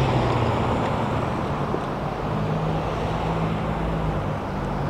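Downtown street traffic: a steady hum of cars with a low vehicle engine running.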